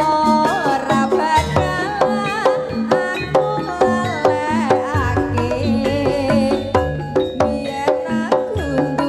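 Jaranan dance music: kendang hand drums playing a busy rhythm under a wavering, ornamented melody line, with a deep low note coming in about five seconds in.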